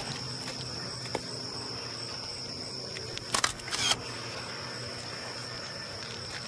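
Steady, high-pitched chirring of insects in the background, with two short noisy bursts about halfway through.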